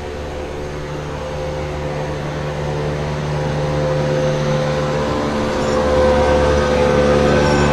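Boat motor running steadily with a low hum, growing gradually louder.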